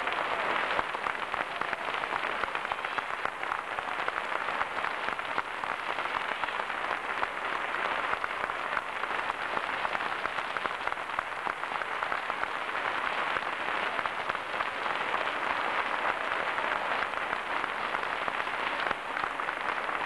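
Audience applauding steadily, a dense crackle of many hands clapping.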